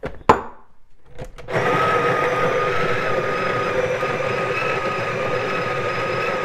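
Breville Barista Pro's built-in burr grinder starting about a second and a half in and running steadily as it grinds espresso beans at grind setting 11, with a steady hum carrying two clear tones. Just before it starts there is a sharp click.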